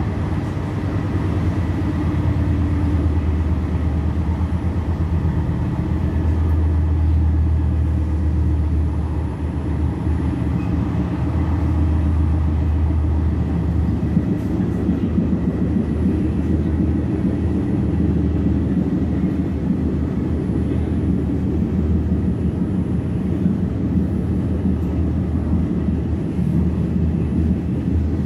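Regional train running along the line, heard from inside a passenger coach: a steady low rumble of wheels on rails, with a few faint clicks.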